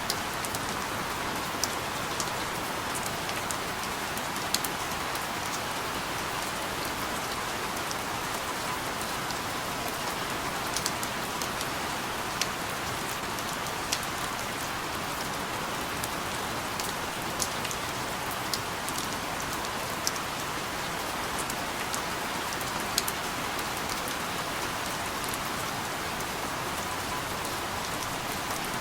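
Steady rain falling on a hard surface: an even hiss with scattered sharp ticks of individual drops.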